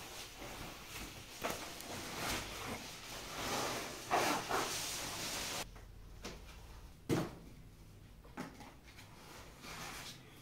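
Rustling and scraping of packing material as a wrapped statue is unpacked by hand. The rustle stops abruptly about halfway through, followed by a few separate knocks.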